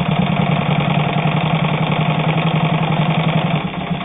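Morse Fotomatic IV zigzag sewing machine running steadily while stitching through two layers of split leather: a motor hum with a fast, even needle-and-gear rattle, easing slightly near the end.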